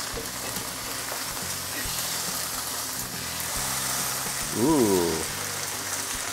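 Banana-leaf-wrapped stingray sizzling as it pan-fries in a non-stick pan, in its own oil with no added oil, while the parcels are turned over. About three-quarters of the way through a man's short 'ooh', rising and then falling, is the loudest sound.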